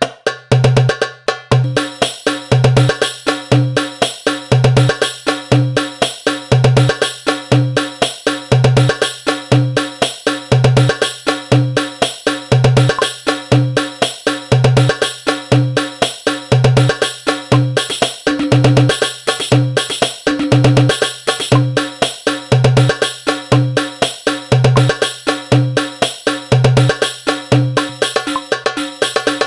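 Darbuka hand-drum rhythm in a koplo-style hadroh groove, played back from a darbuka rhythm app. Deep bass strokes fall about once a second, with quick, sharp, higher strokes filling in between.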